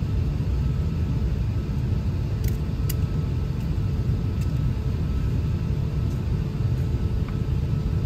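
Steady low rumble inside a jet airliner's cabin while it taxis toward the runway before takeoff, with a couple of light clicks about three seconds in.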